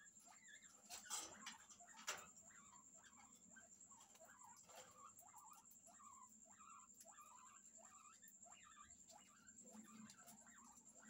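A pair of teddy guinea pigs giving soft, quick squeaky calls, several a second, while mating. A couple of sharp knocks come in the first two seconds.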